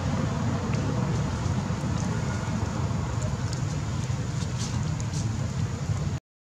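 Steady low rumbling background noise with faint scattered clicks; it cuts out abruptly just before the end.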